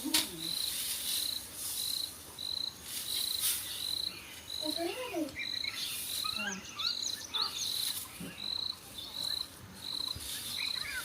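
A cricket chirping steadily, short high-pitched pulses at an even rhythm of about two a second. Brief birdlike chirps come in around the middle.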